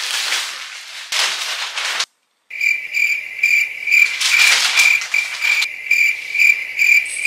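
Plastic mailer bag rustling, then after a short cut a cricket-chirp sound effect: a steady high chirp repeating a little over twice a second that starts and stops abruptly, with more bag rustling under it in the middle.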